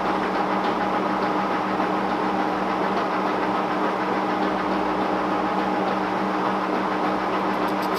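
Monarch 18CY manual lathe running with no cut, its spindle and headstock gearing making a steady hum as the chuck and stainless bar spin. A quick run of light, evenly spaced ticks starts just before the end.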